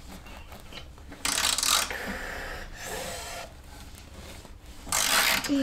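Hand ratchet wrench being turned on the underside of a van, its pawl clicking in two loud spells, one about a second in and one near the end, with softer working noise between.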